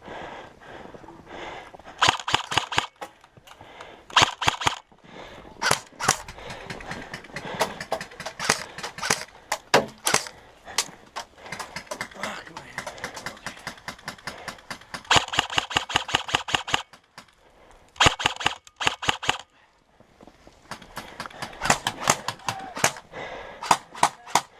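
Airsoft rifles firing in bursts of rapid shots, some close and some farther off, with scattered single shots between the bursts.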